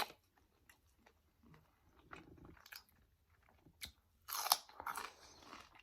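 Close-miked chewing and biting with wet mouth clicks and smacks. A louder, longer stretch of crunching mouth noise comes a little after four seconds in.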